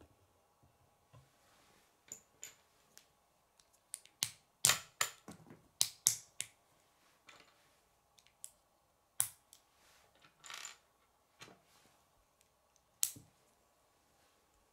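K'nex plastic rods and connectors clicking and snapping together as they are fitted by hand: a run of sharp clicks, thickest a few seconds in, then single snaps every second or two.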